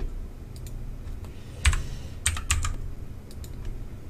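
Computer keyboard keys and mouse buttons clicking: a handful of separate, irregular clicks, with a low steady hum underneath.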